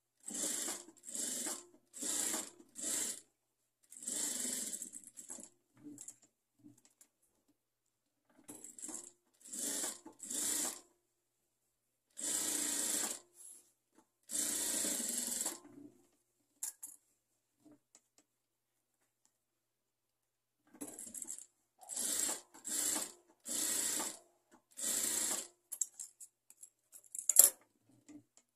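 Jack sewing machine stitching gold lace trim onto fabric in short stop-and-go runs of about half a second to a second and a half, in clusters separated by pauses of several seconds. A single sharp click sounds near the end.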